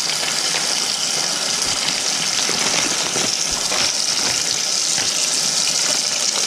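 Kitchen sink tap running in a steady stream while small cleaned bream are rinsed under it, with faint small knocks of the fish being handled.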